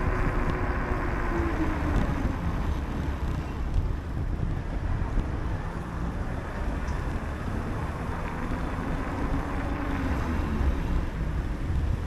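Wind rushing over the microphone of a camera carried on a moving bicycle, mixed with passing road traffic; a vehicle's hum glides down in pitch about a second or two in.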